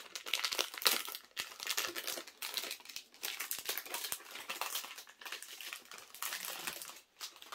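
Packaging on a fragrance box crinkling and crackling as it is unwrapped by hand, an irregular run of rustles and small clicks with short pauses.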